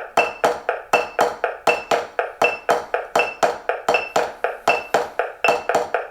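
Drumstick strokes on a 12-inch rubber practice pad, played in pairs: the 'skips' exercise, a double stroke in triplet time, at 80 beats per minute. A metronome beeps on every beat, about three-quarters of a second apart.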